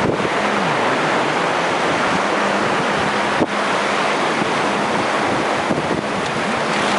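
Steady rush of surf washing onto the beach, mixed with wind buffeting the microphone. A faint steady low hum runs underneath.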